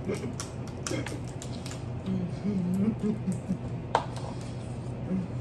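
Crab shells cracking and snapping under hands and teeth: a quick run of crackling clicks in the first two seconds and one sharp crack about four seconds in.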